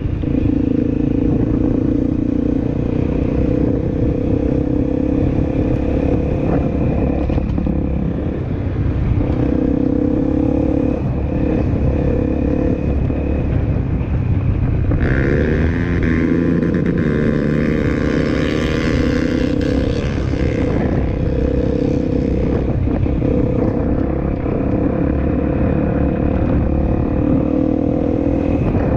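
Honda CRF250L's single-cylinder four-stroke engine running under way on a dirt track, heard from the bike itself. About halfway through, the engine note rises and shifts as it revs up, then settles back to a steady run.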